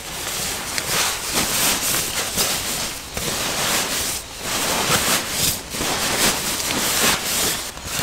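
Footsteps and rustling through forest undergrowth, uneven crunching steps that swell and dip about once a second.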